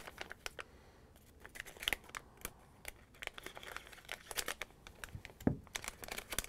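Scissors snipping into a Lego Minifigures blind bag, with the bag crinkling as it is handled and pulled open: scattered soft snips and crackles, sparse at first and busier from about three seconds in.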